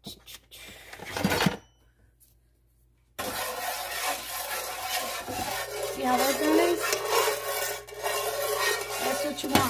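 A spatula stirring and scraping around a frying pan of oil and sazón seasoning, a continuous rasping scrape that starts abruptly about three seconds in. Before it come a couple of knocks about a second in, then near silence.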